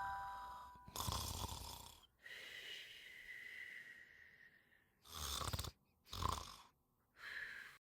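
French bulldog snoring in its sleep: five faint, irregular snoring breaths, one of them long with a thin whistly wheeze. A music chime dies away in the first second.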